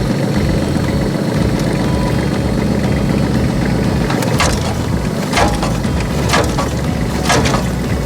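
Tractor engine running with a Sasaoka Daichi-kun rotary implement turning; from about four seconds in, a sharp knock repeats roughly once a second. This is the abnormal noise from the rotary section that the operator reported.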